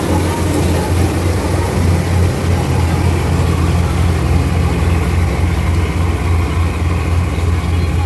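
Syan 998 combine harvester running under load while cutting wheat: a loud, steady drone of the engine and machinery.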